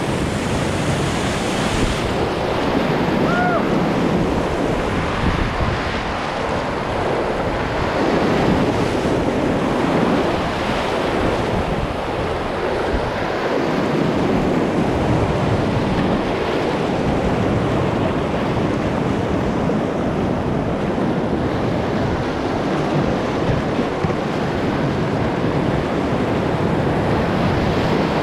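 Whitewater rapids rushing and splashing around an inflatable kayak, a loud, steady river roar, with wind buffeting the microphone.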